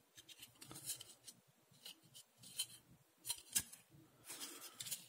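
Faint, irregular clicks, taps and scrapes of hard plastic model kit parts being handled and turned over in the fingers.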